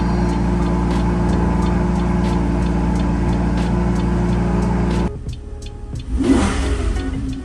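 Lamborghini Huracán Spyder's V10 engine running steadily at idle, cutting off abruptly about five seconds in, followed by a short rising rev-like sweep about a second later.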